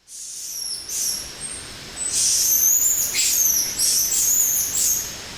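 Several birds calling at once: overlapping high-pitched whistles and chirps, growing denser and louder about two seconds in.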